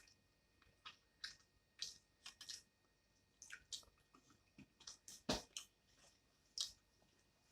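Soft, scattered wet mouth clicks and smacks of someone chewing food, with one louder click about five seconds in.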